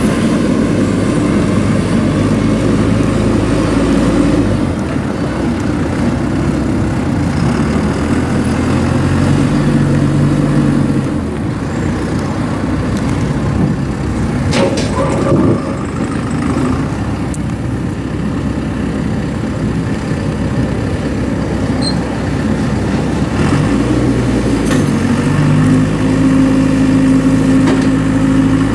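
Diesel engine of a 2007 Komatsu WB142-5 backhoe loader running, its pitch stepping up and down several times as the engine speed changes. There is a short knock about fifteen seconds in.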